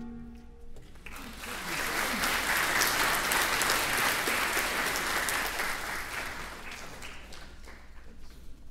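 Audience applause: it builds about a second in, holds full for a few seconds, then thins out near the end. It follows the last ring of the saxophone quartet's closing chord, which dies away right at the start.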